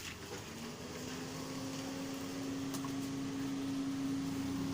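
A single steady low tone that begins about half a second in and is held unbroken, slowly growing louder, over a faint background hiss.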